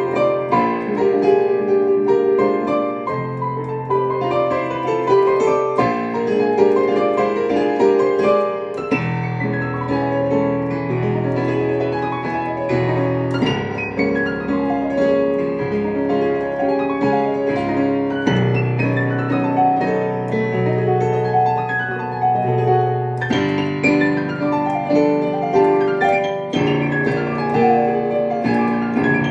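Solo piano playing a flowing piece in Spanish harmonies: quick running notes over held bass notes that change every few seconds.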